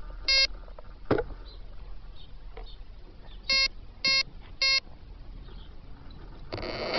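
Short electronic beeps from an Align T-Rex 450 RC helicopter sitting on the ground: two at the start, then three evenly spaced about half a second apart, the arming tones of its electronics before flight. Near the end its electric motor starts spinning the rotor up with a rising whine.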